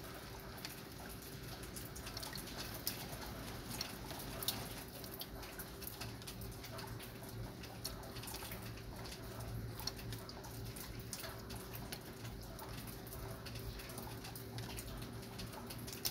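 Light rain falling, with scattered raindrops ticking and pattering irregularly over a soft, even hiss.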